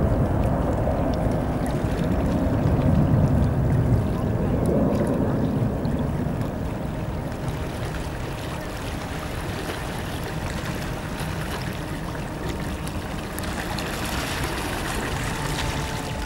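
Jet engine roar of an Airbus A319 climbing away after takeoff, a deep rumble that slowly fades over the first several seconds and then holds at a lower, steady level.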